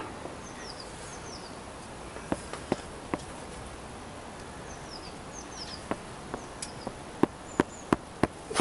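Sharp metallic clicks of a spanner worked on the tight 10 mm exhaust header nuts of a Honda CBR1000F, scattered at first, then four louder ones in quick succession near the end, over a steady hiss.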